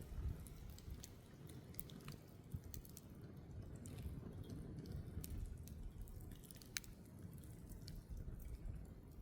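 Wood campfire crackling, with sharp pops scattered irregularly through it over a steady low rumble.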